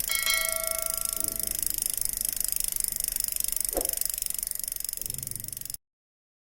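Synthetic cartoon sound effect: a steady high hiss with a fast flutter, a single bell-like ding fading out in the first second and a half, and a short blip about four seconds in; the hiss cuts off abruptly near the end.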